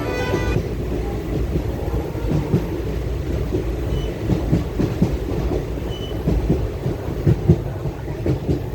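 Passenger train running, heard from on board: a steady low rumble with irregular knocks and rattles of the wheels and carriage on the track. Background music cuts off about half a second in.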